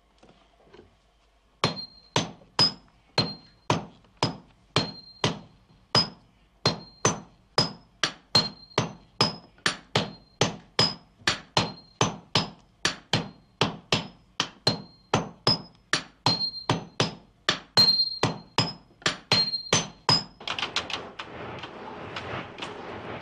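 Forging hammers striking hot sword steel on an anvil in a steady rhythm of about two to three blows a second, each blow a sharp clang with a short metallic ring. Near the end the hammering stops and the steady rush of the charcoal forge fire takes over.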